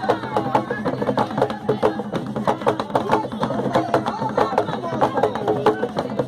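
Live Panamanian folk music: drums beaten in a quick, steady rhythm under a woman singing into a microphone, with hand clapping.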